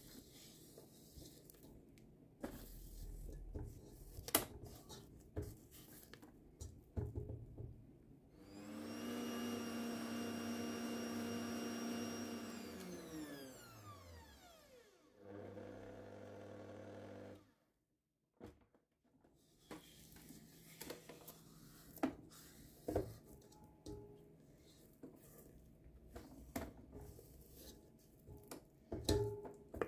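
Stand mixer with a whisk attachment running for about five seconds, a steady motor hum with a high whine, then winding down in pitch as it is switched off. A shorter, lower hum follows. Before and after, a silicone spatula scrapes and taps around the steel bowl as the creamed shortening and powdered sugar are scraped down.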